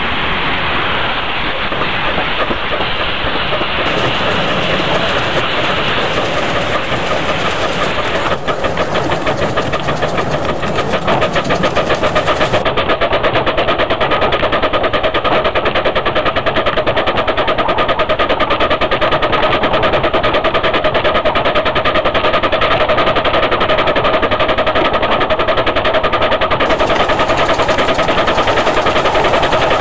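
Double-headed miniature steam train running, heard from an open passenger carriage: a fast, even rhythmic beat of the locomotives and wheels on the track. It grows louder about a third of the way in and then holds steady.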